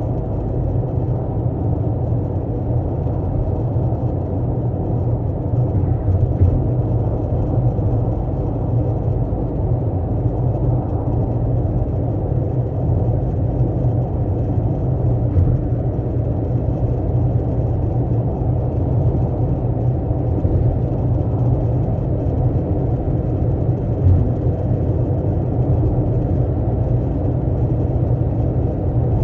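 12th-generation Toyota Corolla Altis running, a steady low rumble, with two brief thumps, one about six seconds in and one later on.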